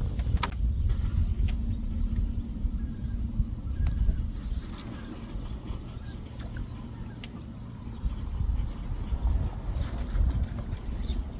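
Wind buffeting a phone's microphone, a gusting low rumble that eases a little in the middle, with a few scattered clicks and knocks.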